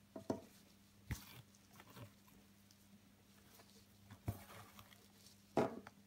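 Hand-embroidery handling noise: a needle and silk ribbon drawn through coarse woven fabric held in a plastic embroidery hoop, with fingers rubbing the cloth. About five short scratchy rustles, the loudest near the end, over a faint steady hum.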